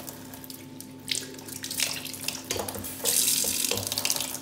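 Kitchen tap running into the sink while a cleaned rapa whelk is rinsed under the stream by a gloved hand, with a few light knocks of handling. The splashing grows louder about three seconds in as the hand moves into the stream.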